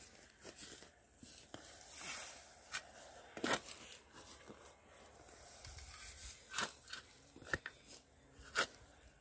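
Steel shovel being driven into grassy soil: scattered crunches and the tearing of sod and roots, with a few sharper scrapes.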